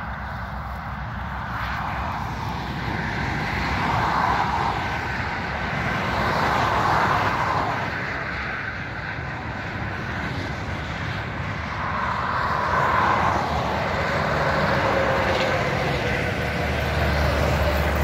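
Motorway traffic passing close by: several vehicles swell and fade one after another with tyre and engine noise, and a truck goes by near the end.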